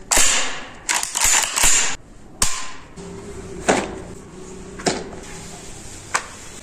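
Kral A12 semi-automatic 12-gauge shotgun handled with its action worked by hand. Two short sliding, rattling clacks come in the first two seconds, then single sharp metallic clicks about every second and a quarter.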